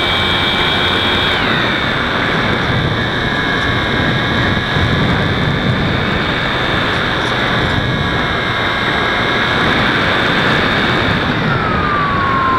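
Electric motor and propeller of a Bixler RC model plane heard from its onboard camera: a high whine over loud wind rush. The whine drops in pitch about a second in as the motor slows, holds steady, then falls again near the end.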